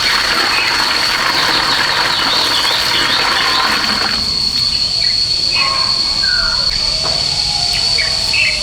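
Insects chirring in one steady high-pitched drone. A rushing noise sounds over it in the first half and stops about halfway, and short scattered calls follow.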